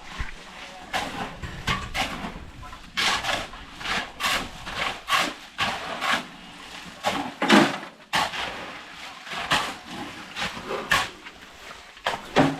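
Shovels scraping and tossing ballast and concrete mix, in short gritty strokes that come irregularly, about one a second.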